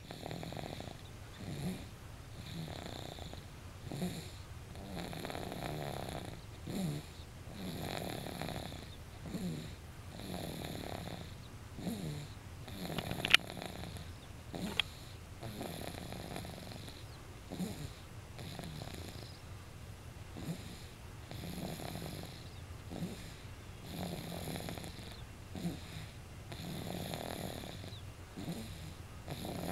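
Rhythmic snoring, a breath about every two and a half seconds. Two sharp clicks come about halfway through.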